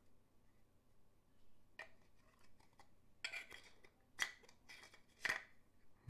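A metal key clicking and scraping against a puzzle box as it is worked into the box's slot and the box is turned in the hands: a handful of faint, sharp clicks, the loudest about five seconds in.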